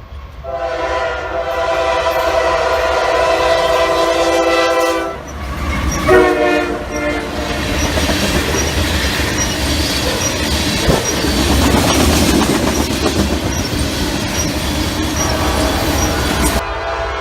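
Freight locomotive's multi-note air horn sounds one long blast and then a shorter one, followed by the steady rumble and wheel clatter of the train passing.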